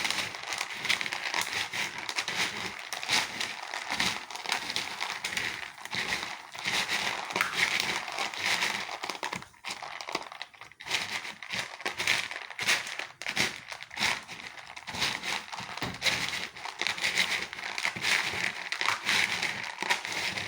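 A napkin crinkling and rustling with many small crackles as damp palm kernel nuts are patted and rubbed dry in it, with a brief lull about halfway through.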